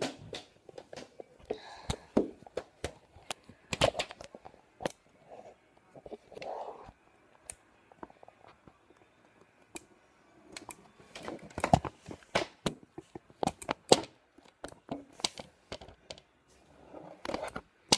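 Handling noise: irregular sharp clicks, taps and rustling as the camera and objects are moved about and set up, with some quieter stretches between.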